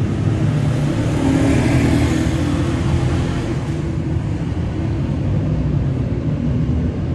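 Steady low rumble with a faint hiss over it.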